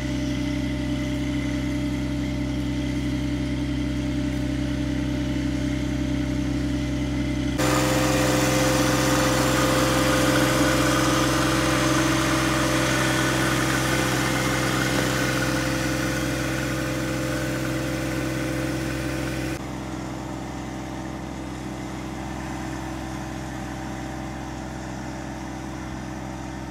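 John Deere 1025R subcompact tractor's three-cylinder diesel engine running steadily under load while pulling a plow through soil. The sound turns abruptly louder and noisier about eight seconds in and drops back about twenty seconds in.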